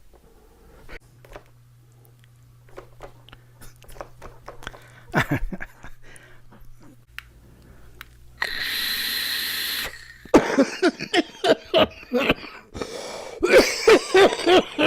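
A man exhales in a long breathy hiss, then breaks into a rapid run of harsh coughs over the last four seconds or so: coughing on a deep hit from a single-coil vape.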